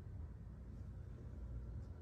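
Quiet room tone: a faint, steady low hum with no distinct events.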